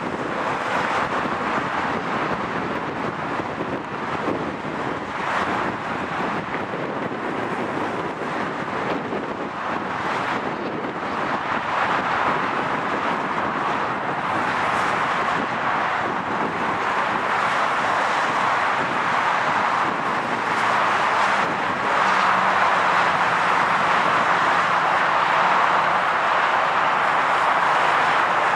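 Jet aircraft engine noise, a steady rushing sound that grows louder in the last third, with wind buffeting the microphone.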